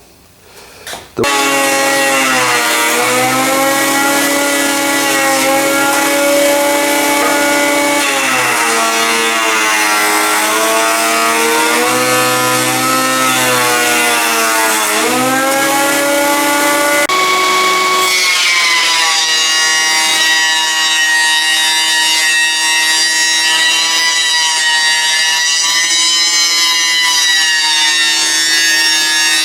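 A Cutech 6-inch jointer planer with a helical carbide-insert cutterhead starts suddenly about a second in and runs loud and steady, its motor whining. The pitch sags and recovers several times as boards are fed across the cutterhead.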